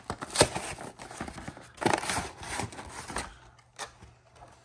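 Cardboard-and-plastic Pokémon card collection box being opened by hand: irregular rustling, scraping and tearing of the packaging, quieter in the last second or so.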